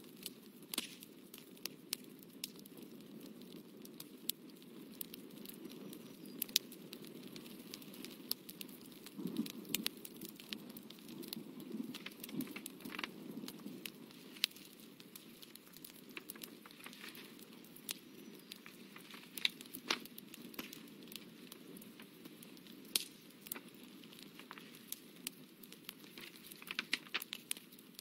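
Hands handling a sheet of drawing paper and a mechanical pencil: scattered small clicks, taps and crackles of paper over a low, steady background noise.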